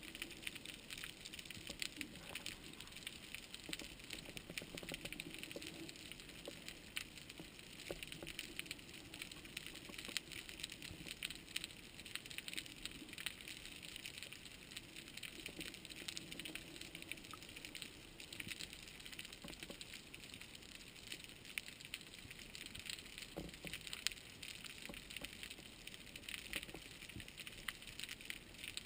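Underwater ambience: a steady, dense crackle of tiny clicks heard through the water, with no single sound standing out.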